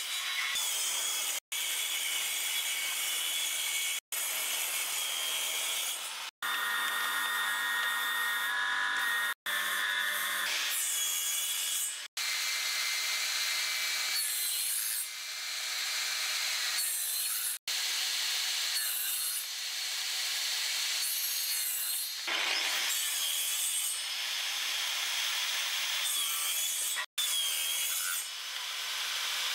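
Benchtop table saw ripping pine boards into strips: a dense, high-pitched cutting noise with the motor's steady whine, breaking off abruptly several times.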